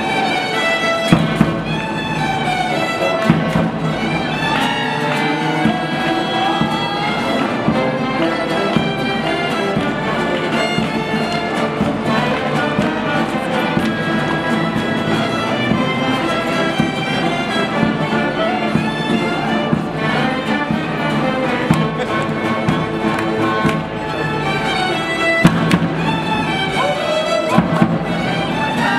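Live folk band playing a tune led by a section of many violins, with an acoustic guitar and a brass bass, all playing together; a few sharp hits stand out above the ensemble.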